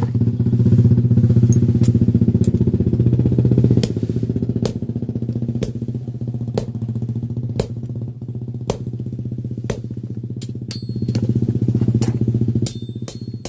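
A steady, low, fast-pulsing mechanical drone, like a motor running. It is joined by sharp strikes about once a second.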